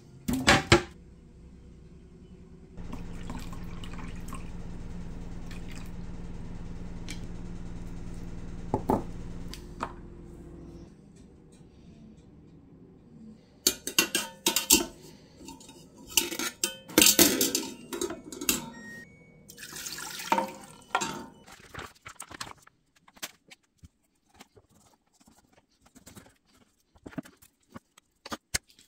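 A steady hum for several seconds, then a run of sharp clatters and clinks as a wire cooking rack is handled in a pressure cooker's inner pot, followed by light scattered knocks.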